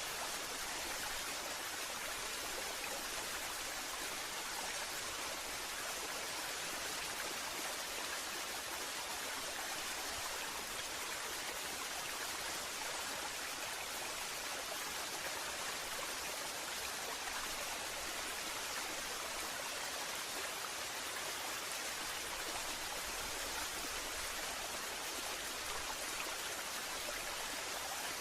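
Waterfall: falling water splashing and rushing in a steady, even hiss.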